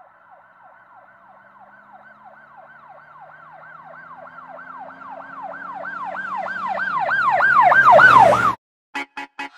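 Emergency vehicle siren in a fast yelp, about three to four sweeps a second, growing steadily louder as it approaches, with the vehicle's engine rising underneath. It cuts off abruptly near the end and is followed by short rhythmic pulsing tones, about three a second, as music begins.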